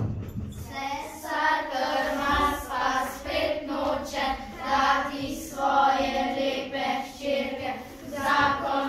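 Children's voices singing a song together, in sustained sung phrases.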